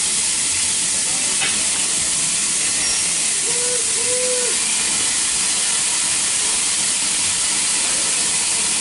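Steam locomotive letting off steam: a loud, steady hiss that does not change.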